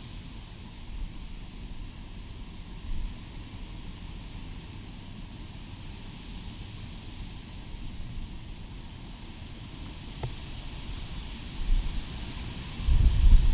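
Hurricane-force wind buffeting the microphone: an uneven low rumble, with stronger gusts slamming in near the end.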